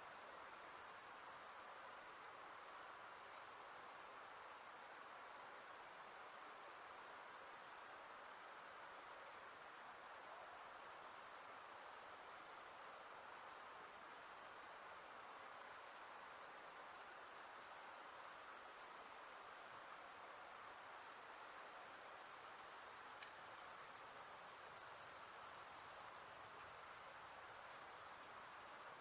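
Dense, unbroken high-pitched chorus of insects trilling steadily in a forest, with a faint lower hiss beneath.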